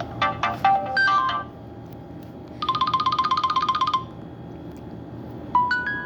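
Nokia X2-00 ringtones played on a Nokia 130 phone's speaker: short electronic melodies one after another. There is a quick run of notes, then a fast trill between two pitches, then a rising run of chime-like notes near the end.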